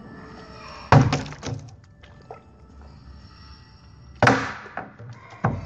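Plastic bottle landing with a thunk after being flipped, about a second in and again just after four seconds in, the first landing followed by a few quick smaller knocks as it bounces; a smaller knock comes near the end.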